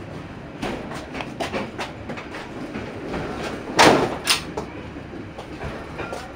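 Train wheels clacking over rail joints and points as the passenger train runs slowly, a quick series of sharp knocks, then two loud metallic bangs close together about four seconds in, over a steady running rumble.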